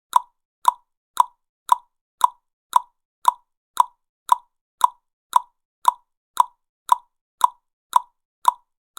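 Human tongue clicks, a mouth-made pop, repeated at a perfectly even pace of about two a second.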